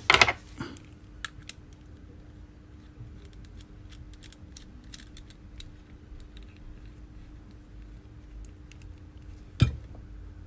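Small repair tools and phone parts being handled on a workbench: a sharp clack at the start and another near the end, with scattered light clicks and taps in between.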